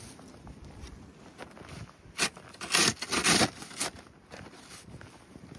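Snow crunching and scraping in four quick strokes about half a second apart around the middle.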